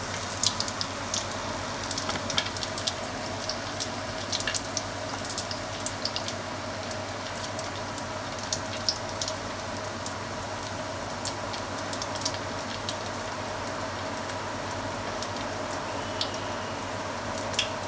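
Hot frying oil sizzling steadily with frequent, irregular sharp pops and crackles from freshly deep-fried bone-in beef short ribs.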